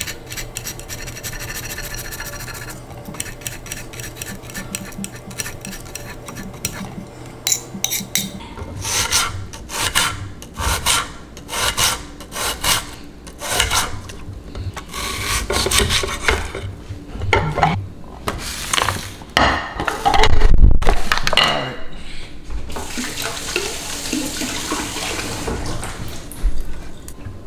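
Kitchen food preparation: a knife sawing through food on a cutting board in repeated strokes, roughly one a second, with a louder thump about twenty seconds in and a stretch of steady rubbing near the end.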